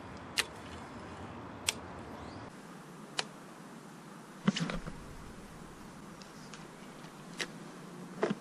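About six sharp clicks and knocks over a faint steady hiss, the loudest a knock with a dull thud about four and a half seconds in: handling noise from a baitcasting rod and reel in a small aluminium boat during a cast.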